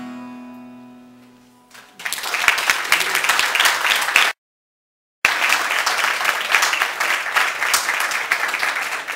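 A final acoustic guitar chord rings out and fades, then an audience applauds. The applause cuts off abruptly for about a second midway and resumes.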